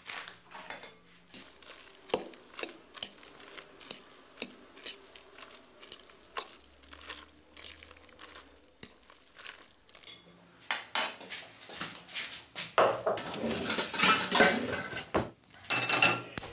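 A fork clinking and scraping against a glass bowl while tossing egg-coated leftover spaghetti and grated cheese. Scattered sharp clinks, getting busier and louder over the last few seconds.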